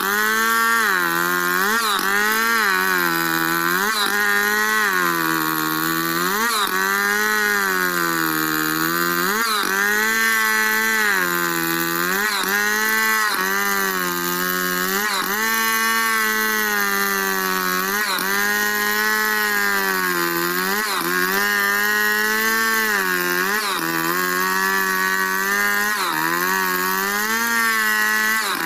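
Stihl two-stroke chainsaw at full throttle, ripping lengthwise along a log in freehand milling. The engine pitch sags under the load and picks back up every second or two as the bar is worked along the cut.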